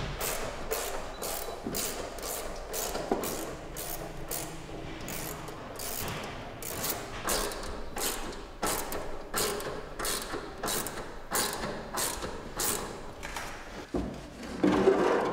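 A ratchet hand tool clicking in a steady rhythm, about three clicks a second, as fittings at the car's seat are worked loose. The clicking stops, then there is a louder thump near the end.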